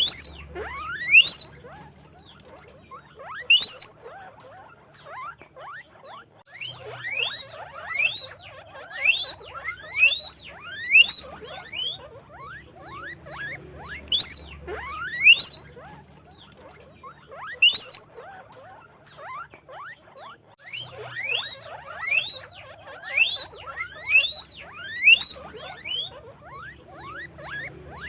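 Guinea pigs wheeking: loud, high whistling squeals, each rising sharply in pitch, repeated in bouts of several calls with short pauses between. The calls sometimes overlap, as from more than one animal.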